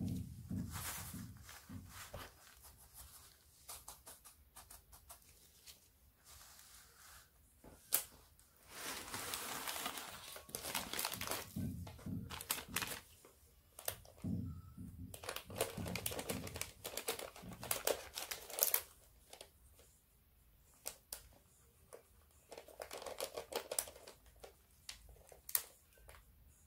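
Food-prep handling sounds: a latex-gloved hand rustling through a dry coating of coconut powder and chopped almonds, and a knife scraping and tapping on a plate as it cuts a minced-chicken mixture. These come in irregular bursts of rustling and scraping, with scattered sharp clicks.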